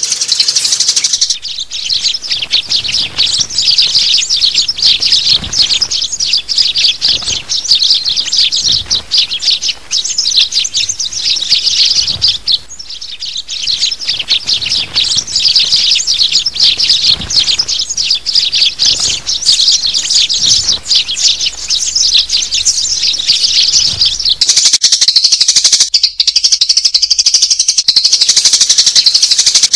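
A flock of adult sparrows chirping continuously in a dense chorus of short, high chirps, as used for a trapping lure call. Near the end the chorus grows denser and steadier.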